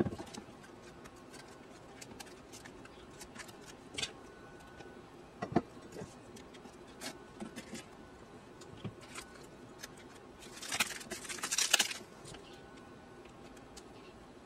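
Table knife spreading icing over crisp baked pastry layers: scattered light scrapes and taps, with a louder stretch of scraping about ten to twelve seconds in.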